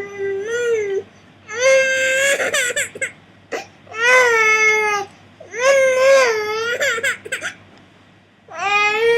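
Baby's loud drawn-out wailing calls, one after another, each lasting about one to two seconds with short breaks between. The uploader says these are fussing calls to get attention rather than real crying.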